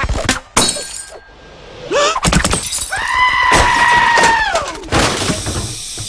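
Cartoon slapstick sound effects: a run of sharp crashes and things breaking and shattering. About three seconds in comes a long held tone that slides down in pitch before it stops.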